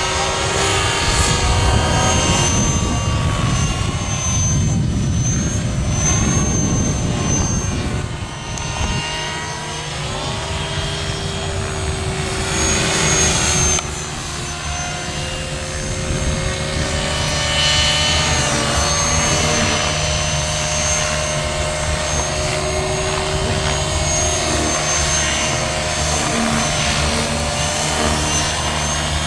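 Align T-Rex 500 electric RC helicopter in flight: its motor and gear whine over the rotor blades' chop, the pitch gliding up and down as it manoeuvres.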